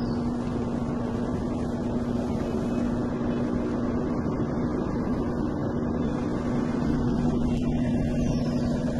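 A steady motor hum at one constant pitch over a low rumble, with a second lower hum joining near the end.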